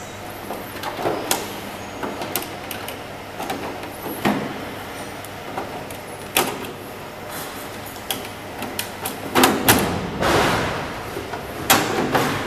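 Irregular clicks, knocks and clatter of side cover panels being handled and fitted onto a conveyor-belt needle detector, with a louder scraping, rustling stretch about ten seconds in.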